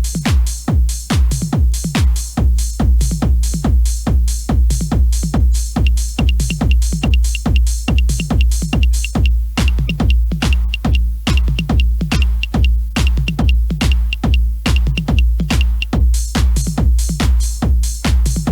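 Electronic dance music with a steady kick drum about twice a second, hi-hats on top and a short repeating high synth note, recorded off FM radio onto cassette.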